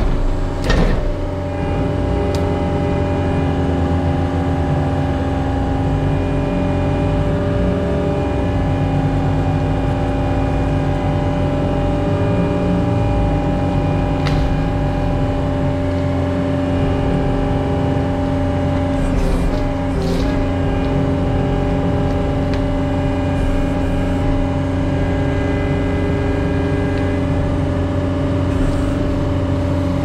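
Diesel engine of a John Deere compact track loader running at a steady, constant speed as the machine drives, with a few faint clicks.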